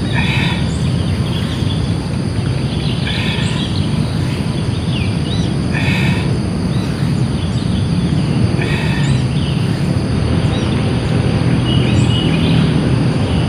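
Steady low outdoor background noise with scattered bird chirps. A short, higher, breathy sound comes back about every three seconds.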